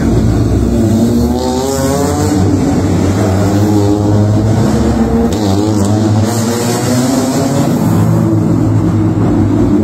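Vintage car engine running at low speed, its revs rising and falling a few times.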